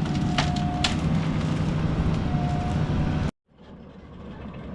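Excavator's diesel engine running under load as it works a fallen tree, with a few brief clicks and a short high whine. The sound cuts off abruptly about three seconds in, and fainter machine noise follows.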